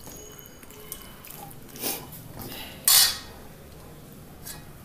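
Steel spoon scraping and clinking against a stainless steel kadai while stirring chicken curry. Two louder scrapes come about two and three seconds in, the second the loudest.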